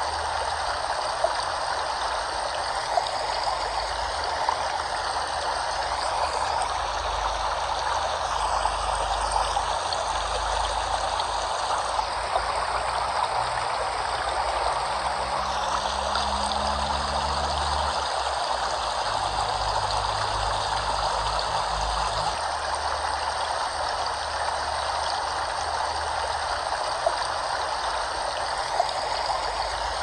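Rushing water flowing steadily, an even unbroken wash of sound with a low rumble underneath.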